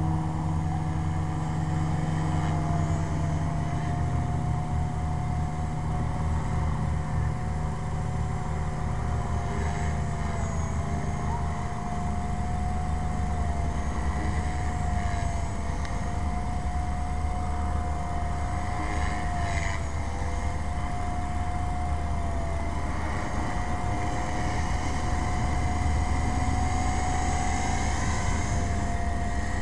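Blade 450 X electric RC helicopter in flight: the brushless motor and rotor head give a steady whine with a low rotor hum beneath, the pitch dipping slightly now and then as the throttle and blade pitch change.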